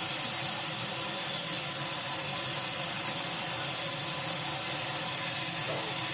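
Steam locomotive 34092 City of Wells letting off a steady, high-pitched hiss of steam that cuts off about five seconds in.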